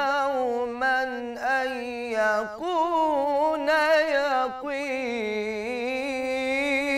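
A young male munshid singing an Islamic religious hymn (inshad) solo, with no instruments. He draws out long ornamented melismatic phrases with a wavering pitch, breaking briefly between them.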